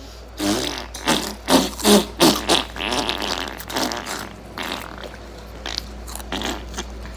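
Chips crunching: a quick run of crisp, irregular crackles over the first few seconds, then a few scattered ones.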